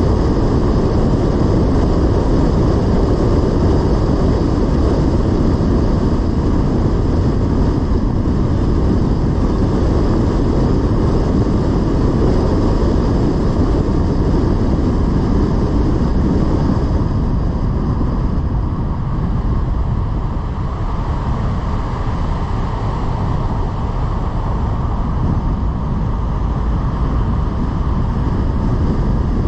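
Car driving on the road: steady tyre, engine and wind noise, heaviest in the low end, easing slightly past the middle.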